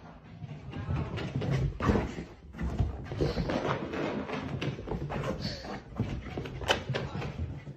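A pet animal's noises, with irregular knocks and clicks.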